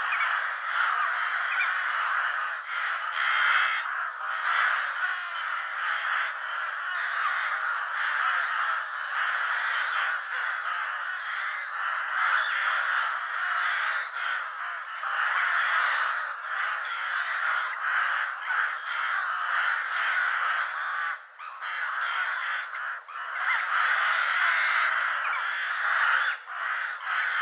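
Crows cawing over one another in a dense, almost unbroken chorus, with only brief dips.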